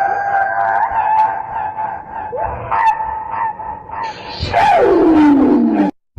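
A drawn-out, exaggerated sneeze: a long, high, held vocal wind-up for about four seconds, then the loud sneeze itself with a steeply falling pitch, cut off suddenly.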